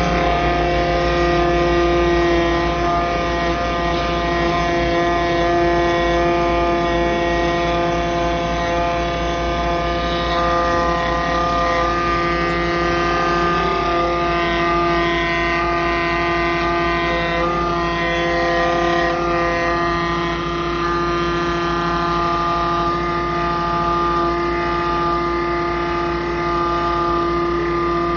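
Piusi 12-volt fuel transfer pump running steadily under load, a constant hum of several held tones from its electric motor, during a timed flow-rate test as it pumps fluid through a filter and flow meter.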